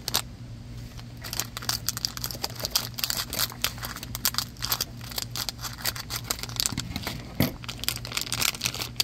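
Foil blind-bag packet crinkling and crackling in a dense run as it is cut open with scissors and pulled apart.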